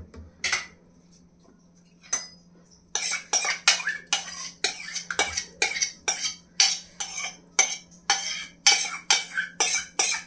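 Spoon scraping thick curd out of a stainless-steel bowl into a steel pot: a few scattered clinks, then from about three seconds in quick, regular scrapes, about three a second.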